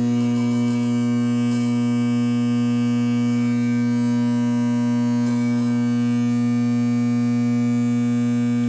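Induction levitation table's magnet coils humming under heavy AC drive current while an aluminum sauté pan floats above them: a loud, steady electrical hum with a strong low tone, a second tone an octave up, and many fainter overtones.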